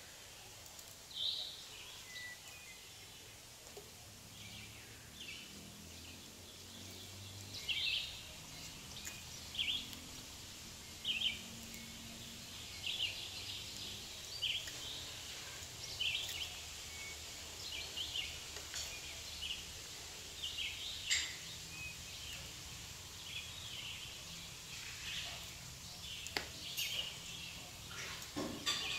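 Small knife scraping at the cut top of a grape seedling's woody stem: short, irregular high-pitched scrapes, roughly one a second, over a faint steady background hum.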